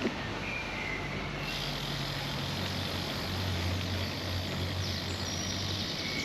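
Steady street noise with a motor vehicle's engine humming low through the middle, and a few short high bird chirps over it.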